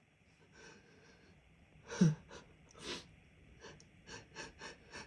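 A person's stifled sneeze about two seconds in, a short burst with a falling pitch, followed by a breath out and then a run of short, quick breaths in the second half.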